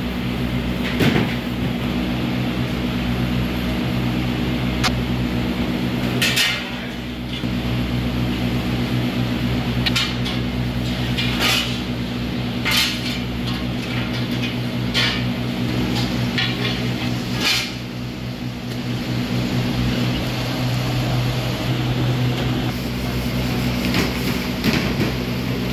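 Steady low electrical hum of running kitchen equipment. Short scrapes, rustles and clinks from food preparation are scattered over it: a spoon spreading sauce on the dough and plastic-gloved hands placing toppings.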